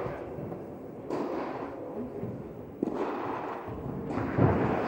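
Tennis rally in an indoor hall: three sharp ball strikes about a second and a half apart, each echoing through the hall, the last one a heavier thump.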